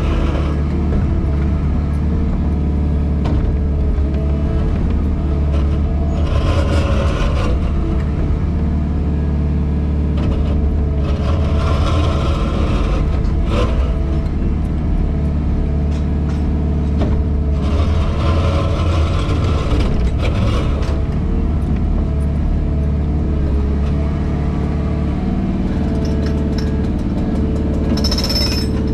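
JCB Pothole Pro's diesel engine running steadily, heard from inside its cab, with the hydraulics working the digging arm. Several stretches of a few seconds each add a louder hiss as the arm is moved, and the engine note drops right at the end.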